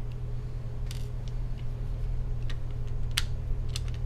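A few sparse, sharp clicks from a tool and hands on the laptop's battery screws and case, the loudest near the end, over a steady low hum.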